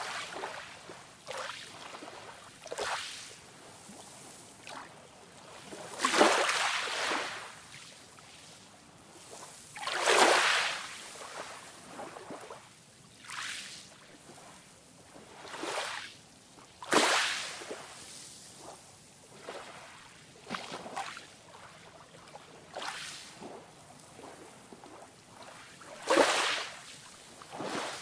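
Calm sea waves washing in: a soft rush of surf every few seconds, each swell rising and fading within a second or two, with a few louder ones among them.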